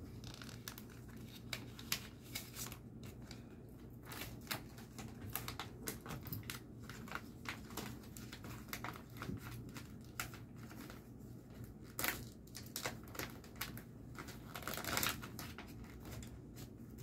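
Clear plastic binder sleeves crinkling and rustling in scattered bursts as banknotes are slid into the pockets and the pages are handled, with small clicks among them.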